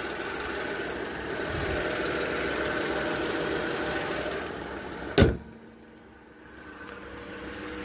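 A 2008 Lincoln MKZ's 3.5-litre V6 idling steadily with the hood open. About five seconds in the hood is slammed shut with one loud bang, and the idle goes on, much quieter, under the closed hood.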